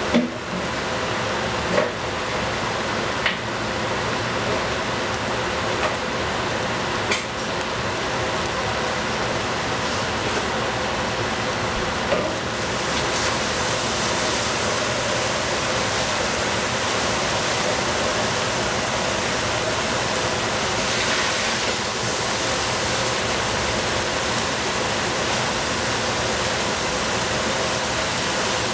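Steady hiss of food cooking in a pan over the stove's flame, with a few sharp knocks of a utensil against the cookware in the first twelve seconds. The hiss turns brighter about twelve seconds in.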